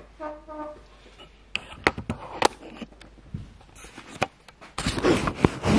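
Two short electronic-sounding tones, then scattered clicks and knocks as gear is handled. From about five seconds in, loud rubbing and bumping close to the microphone as the camera itself is picked up or covered.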